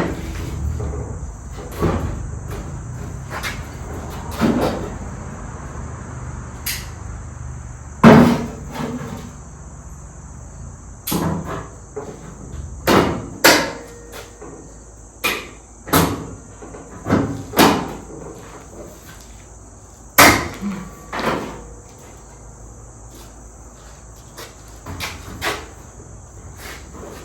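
Irregular knocks and metallic clanks as sheet-metal body panels are handled and tapped into place, about fifteen of them spread unevenly, the loudest about 8 s and 20 s in. A steady high-pitched chirr runs underneath.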